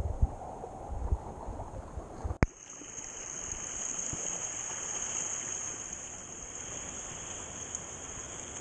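Shallow seawater sloshing and washing around a camera held at the waterline, with dull thumps of water against it at first. A sharp click about two and a half seconds in, then a steady hiss of shallow surf.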